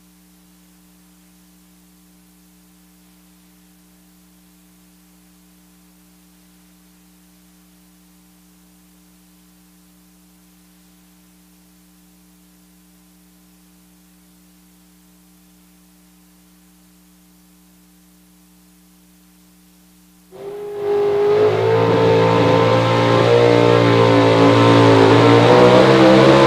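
A faint steady electrical hum, then about twenty seconds in a Pro Stock 4x4 pulling truck's engine cuts in loud and revs hard under load as the truck pulls the sled, getting steadily louder.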